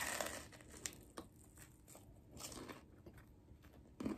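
A person biting into and chewing a crunchy shrimp taco topped with Cheetos close to the microphone: a crisp crunch at the start, then wet mouth clicks and smaller crunches about two and a half and four seconds in.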